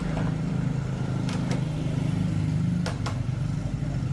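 Steady low machine hum, like a running motor, with a few sharp clicks or taps over it.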